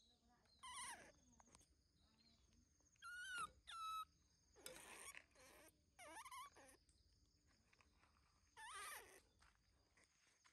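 Baby macaque giving about six short high-pitched squeaks and whimpers, some gliding downward in pitch, the two loudest close together about three seconds in.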